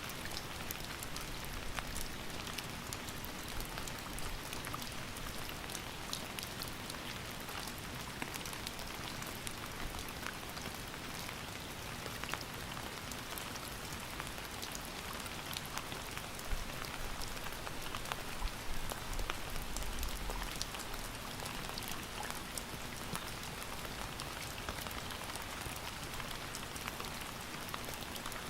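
Steady rain falling, with the patter of many individual drops hitting a surface.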